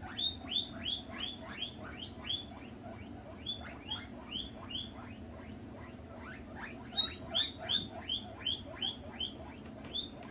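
Guinea pig wheeking: high, rising squeals repeated about three times a second in runs, with a pause of a couple of seconds partway through.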